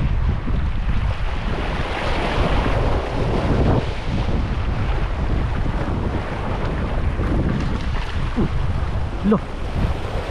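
Wind buffeting the microphone in a steady low rumble, over sea waves washing at the shore.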